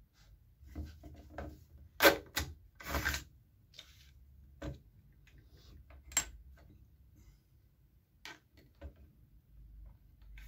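Irregular light clicks and knocks from a strip of staples and the plastic-bodied KOBB KBZ90 electric nailer/stapler being handled on the bench. The loudest knock comes about two seconds in, followed by a short scraping rustle, and a sharp click comes about six seconds in.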